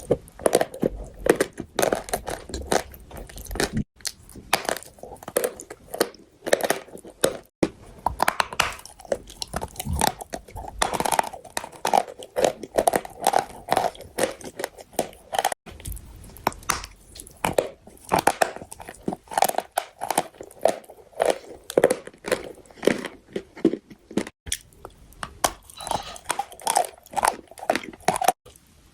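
A person biting and chewing chalk: an irregular run of crisp crunches, several a second.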